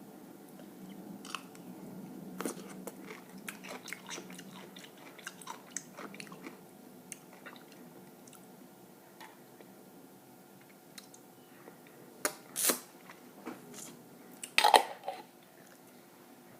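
Close-miked chewing and biting of a cheeseburger-and-fries meal, with many small mouth clicks in the first half. There are two louder sharp crackles, one about three-quarters of the way through and one near the end.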